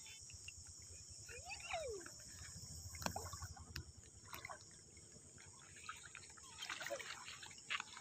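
Faint trickling and sloshing of shallow river water as people wade through it, over a steady high drone of night insects.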